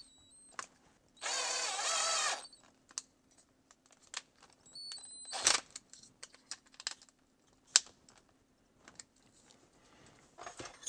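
Cordless drill motor whirring in one short run of about a second, driving into a small part held in the hand. After it come scattered clicks and taps of small parts and tools being handled, with a sharp click a little past halfway.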